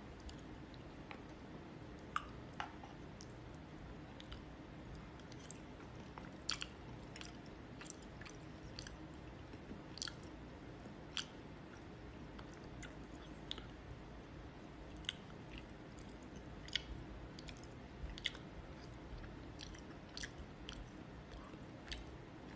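Faint eating sounds: chewing, with irregular small clicks of wooden chopsticks against a plastic cup, over a low steady hum.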